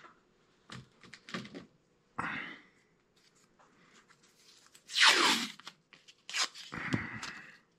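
Blue painter's tape being pulled off the roll and torn, in several short rips, the loudest and longest about five seconds in, with a steadier rasp of tape unrolling near the end.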